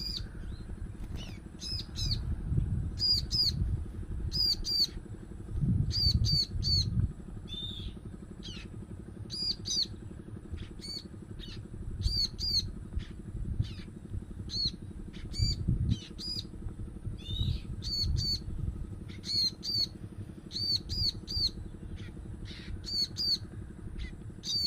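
Bar-winged prinia chick calling: short high chirps in clusters of two or three, repeated every second or two, over a low rumble.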